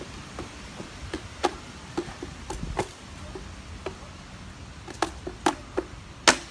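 Juggling cigar boxes clacking against each other: about fifteen sharp wooden knocks at uneven spacing, the loudest near the end.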